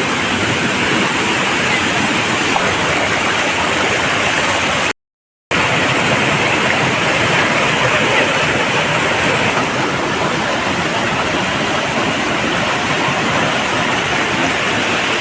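Loud, steady rush of a waterfall and its fast-flowing stream, broken once by a half-second gap of silence about five seconds in.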